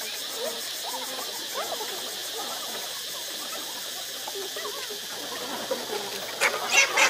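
Tropical forest ambience: a steady high insect hiss with many short chirping animal calls, and a burst of louder, sharper sounds near the end.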